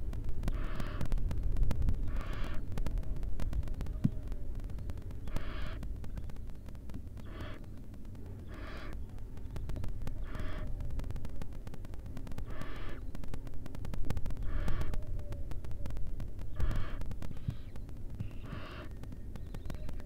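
Barn owls in the nest box giving short, breathy hissing snore calls, about one every two seconds, over a steady low rumble.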